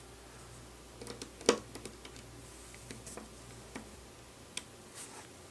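A few scattered light clicks and taps, one sharper than the rest about a second and a half in: metal tweezers working tiny screws out of a smartwatch's main board and setting them down on the bench.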